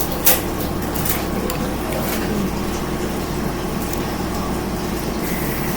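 Steady mechanical hum, with one sharp click about a third of a second in and a few fainter clicks after it.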